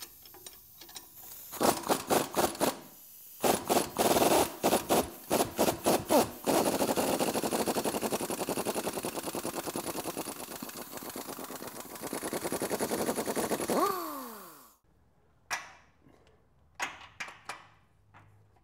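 Ingersoll Rand Titanium air impact wrench hammering on an 18 mm upper control arm bolt: several short bursts, then a long continuous run of about seven seconds that winds down with a falling whine as the trigger is released. A few faint clicks and knocks follow.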